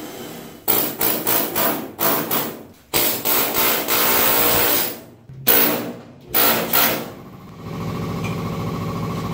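Power drill cutting out spot welds in steel sheet-metal body panels, run in short bursts and one longer run of a couple of seconds. Near the end a steady lower hum takes over.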